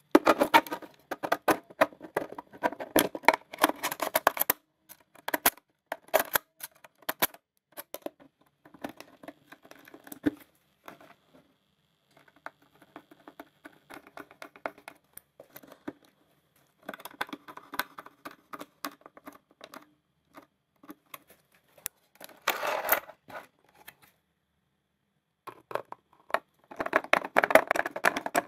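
Bursts of rapid small clicks and taps in runs of a few seconds, with short pauses between them.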